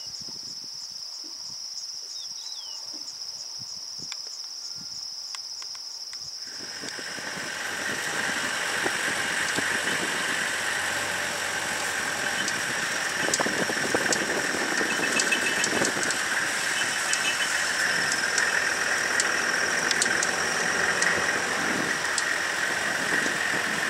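A steady high-pitched insect trill, then, about six seconds in, a safari 4x4's engine running as the vehicle drives along a dirt road, with light rattles from the open body.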